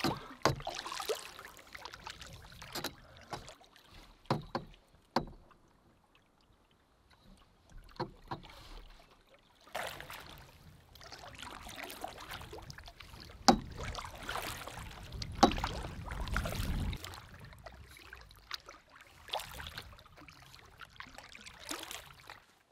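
Canoe paddle strokes: the blade dipping and pulling through the water in irregular splashes and drips, with a few sharp knocks along the way and quiet gaps between strokes.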